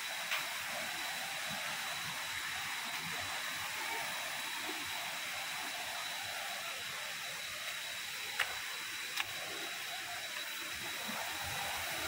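Small waterfall cascade rushing steadily over boulders into a pool, with a thin steady high tone over it and a couple of sharp clicks about eight and nine seconds in.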